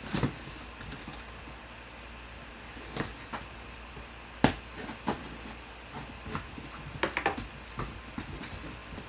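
A cardboard box being cut open: a folding-knife blade slitting the packing tape along the seams, then the flaps pulled apart, with scattered short knocks and scrapes of cardboard, the sharpest about halfway through.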